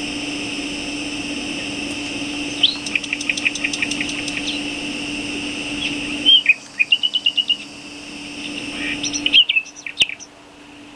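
Small birds chirping: a quick run of repeated short notes a few seconds in, a brief trill about halfway, and more chirps near the end. Underneath is a steady hum that drops out about six seconds in.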